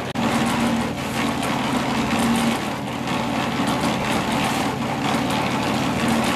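Small engine of a portable drum concrete mixer running steadily, a constant low hum.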